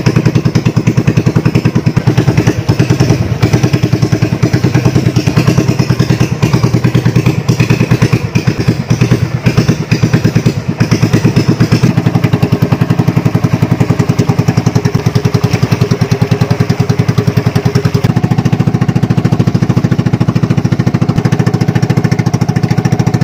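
Small engine of a motorized outrigger boat (banca) running steadily under way, loud, with a rapid even pulsing beat. Its note shifts slightly about three-quarters of the way through.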